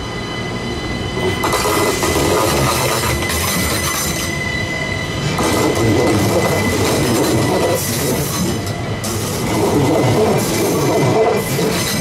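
Train running along the station tracks, its wheels rumbling and clattering on the rails, louder from about a second and a half in. A steady high squeal sounds throughout.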